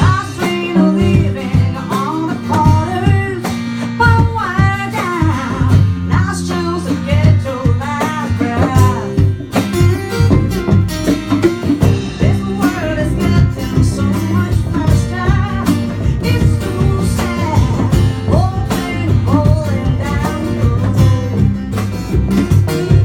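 Acoustic band playing live: acoustic guitar and singing over a steady low bass line and regular percussion.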